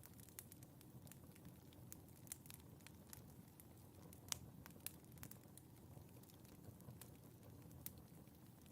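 Wood fire burning in a fireplace, crackling faintly with irregular sharp pops over a low rumble of flame; the loudest pop comes a little past four seconds in.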